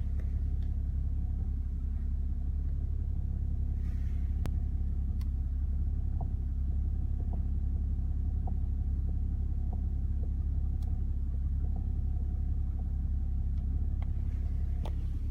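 2008 BMW E61 5 Series with active steering: a steady low rumble of the running car, with faint sharp clicks about once a second and one stronger click about four and a half seconds in. The clicks come from behind the steering wheel as it is turned slightly, and the owner takes them to be most likely a faulty active-steering rack.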